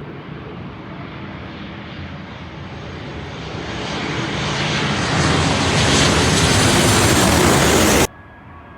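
Airplane passing low overhead, its engine noise a steady rush that grows louder and brighter as it comes closer, then cuts off abruptly about eight seconds in.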